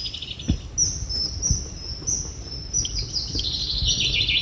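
Small songbird singing: a run of quick, high, repeated notes, over a low rumble with a few dull knocks.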